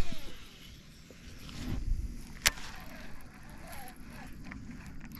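A fishing rod cast swishes out at the start, a sharp click comes about two and a half seconds in, then a fishing reel is cranked steadily, retrieving a chatterbait.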